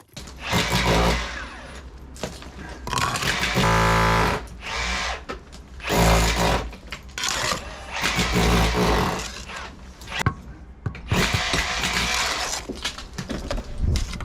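Power drill running in about six short bursts, some with a pitched motor whine, boring into a blown brick to break it out of the wall.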